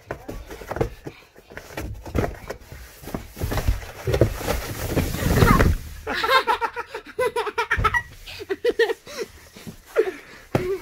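A child sliding down a cardboard-box slide laid over stairs, bumping and scraping against the cardboard, loudest about four to six seconds in. She then laughs in short bursts at the bottom.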